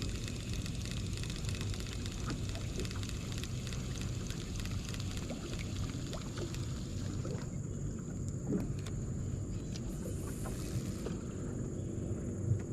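Steady outdoor waterside ambience: a low steady hum under a thin high steady whine, with scattered light clicks.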